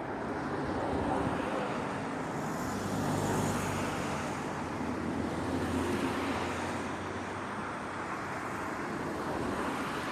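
Road traffic passing: a steady rumble of vehicles that swells and fades a few times, with a low engine hum strongest in the middle.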